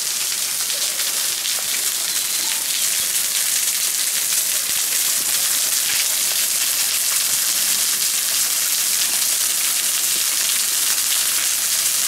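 Waterfall splashing steadily: an even, bright rush of falling water.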